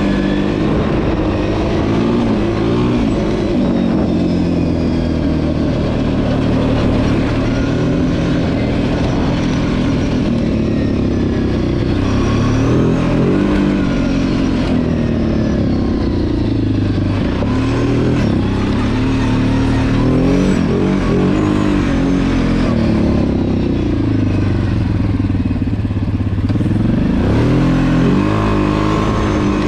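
Kawasaki KFX 700 quad's V-twin engine running under way, its pitch rising and falling again and again as the rider opens and closes the throttle, with a sharp climb in revs near the end.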